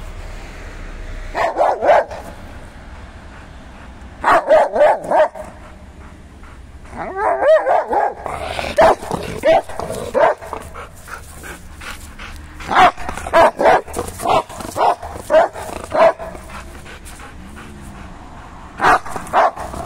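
Rottweiler barking up at a cat in a tree, in bursts of high-pitched yelping barks. A thin, steady whine is held between the bursts.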